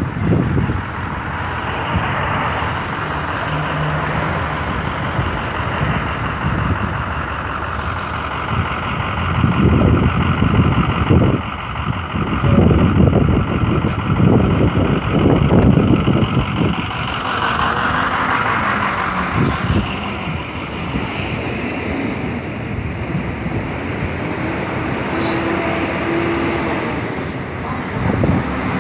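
City bus heard from inside while riding: engine running and road noise, with heavier low rumbling for several seconds partway through.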